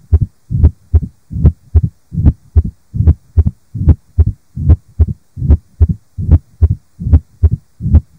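Sound-enhanced stethoscope recording of a heart with mitral stenosis: low, evenly repeating heart-sound thumps, about two and a half a second, carrying the murmur of a narrowed mitral valve.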